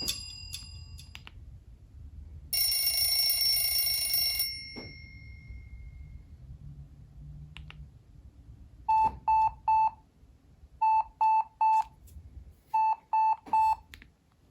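Nokia 6790 Surge ringtones playing one after another. A melody ends in the first second, and a buzzy ring sounds for about two seconds starting about two and a half seconds in. Near the end an alarm-like beeping tone plays: three quick beeps, repeated three times.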